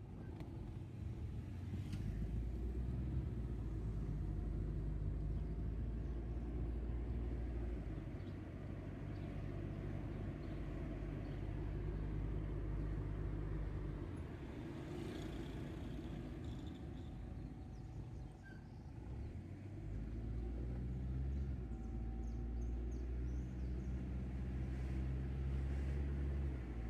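Car engine and tyre noise heard from inside the cabin while driving slowly. It is a steady low drone that shifts in level and pitch several times as the car speeds up and slows.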